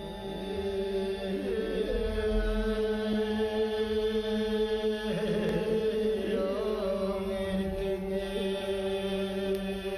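Mongolian throat singing (khöömii) by men's voices: a low steady drone with shifting overtones sounding above it, the low part growing fuller about halfway through.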